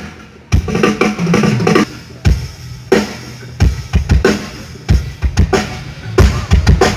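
Drum kit played during a band sound check: irregular bass drum kicks and snare hits, with a quick run of strokes near the end.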